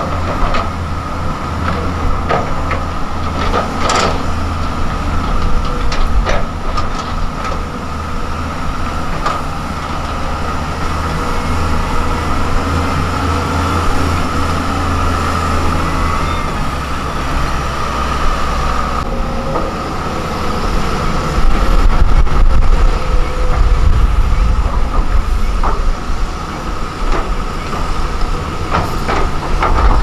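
Heavy diesel construction machinery running steadily, led by a LiuGong motor grader's engine: a low rumble with a steady high whine and a few sharp clanks. The rumble grows louder about two-thirds of the way through.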